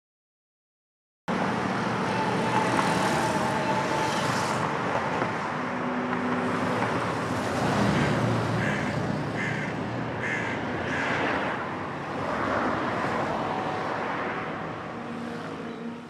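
Street traffic noise, with cars and motor scooters passing, cutting in abruptly about a second in after silence.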